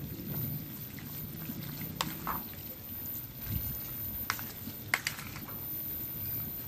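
Wet squelching of a yogurt-soaked mixture of pakoras, potatoes and onions being mixed by hand in a plastic bowl, with a few sharp clicks through the middle of it.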